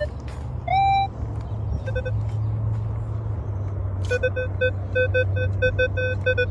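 Minelab Equinox 800 metal detector beeping: one higher beep about a second in, then from about four seconds in a run of short low-pitched beeps, three or four a second. A steady low hum runs underneath.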